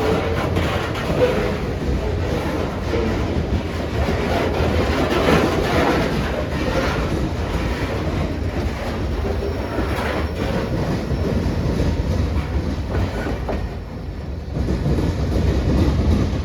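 A train rolling past, its railroad cars' wheels clicking over the rail joints above a steady rumble.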